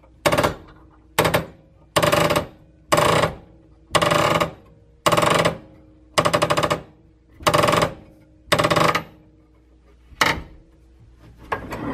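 A new ball bearing being pressed onto the steel commutator shaft of a Singer PA 10-8 sewing-machine motor with a pipe clamp, creaking loudly and sounding terrible. About ten separate creaks come roughly one a second, the last one about ten seconds in.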